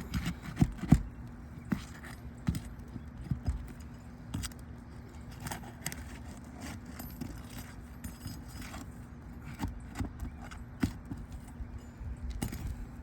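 Asphalt roof shingles being pried and unsealed with a flat bar: irregular sharp taps, clicks and scrapes. The brittle shingles are tearing along the nail line.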